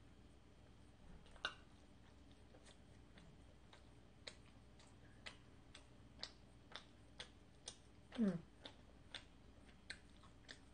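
Close-miked mouth sounds of chewing sticky glutinous rice cake (chalddeok): faint, irregular wet clicks. About eight seconds in comes one louder, brief sound that falls in pitch.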